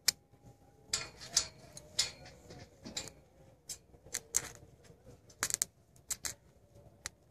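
Stick welding on iron: the arc crackling and popping in short, irregular bursts of sharp clicks as the electrode is struck and run.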